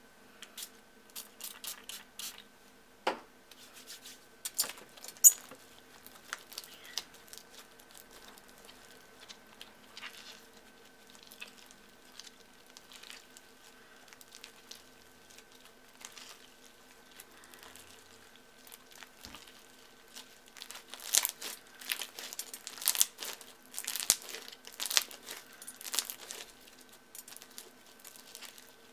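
Hands squishing and stretching a sticky bubblegum slime full of soft, spongy foam beads, giving irregular sticky clicks and crackles. The crackling is busiest about three quarters of the way through.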